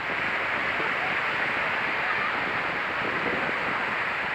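Sea waves making a steady rushing noise that hardly rises or falls.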